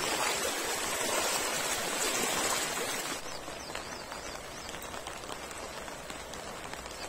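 Shallow monsoon floodwater flowing fast over a stream bed, with rain. About three seconds in it drops to a quieter flow, with faint repeated high chirps over it.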